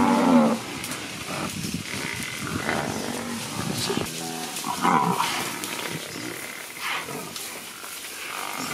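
Lionesses growling and snarling in several short bouts as they attack a buffalo calf.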